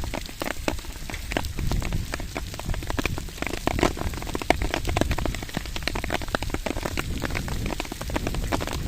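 Rain falling hard, with many drops striking nearby surfaces as a dense run of sharp separate taps, over a low rumble of wind on the microphone.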